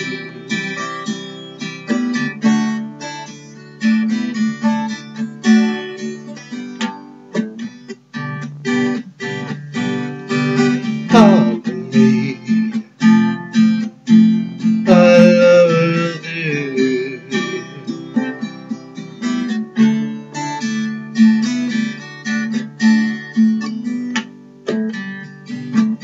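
Acoustic guitar strummed in a steady rhythm: chords ringing between sung lines of the song.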